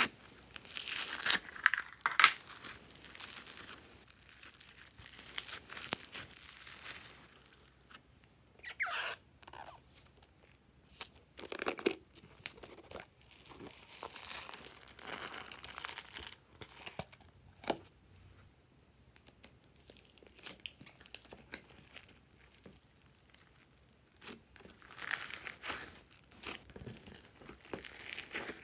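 Clear slime being squished and stretched by hand, giving irregular crackling pops and sticky tearing sounds in uneven bursts.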